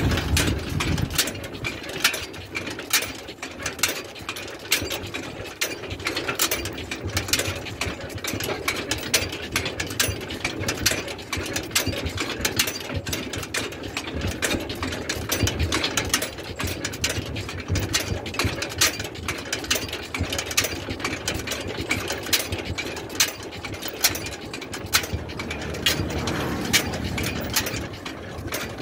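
Camel cart rolling along a paved road: its metal frame, shafts and hanging chain rattling and clattering continuously as the camel walks, over a steady rolling noise.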